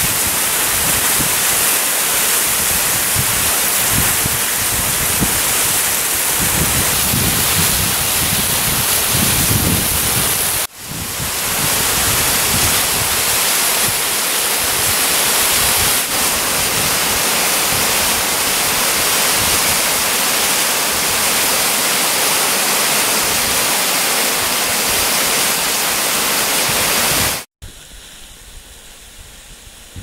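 Steady loud rush of water falling over the rocks of a partly frozen mountain waterfall. It breaks off briefly about ten seconds in and turns much quieter suddenly near the end.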